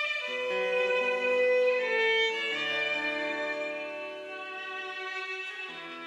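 Scottish fiddle music: a slow tune of long held notes, several sounding together over lower sustained notes.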